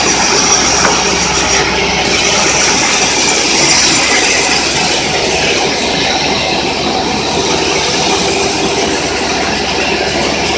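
Mobile band sawmill running steadily: a loud, even mechanical noise from the saw's drive and blade, with some metallic squeal.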